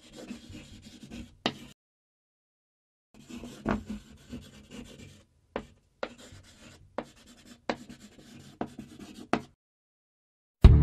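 Marker pen scratching across a whiteboard in several stretches of writing, separated by short silences, with sharp ticks where the tip touches down.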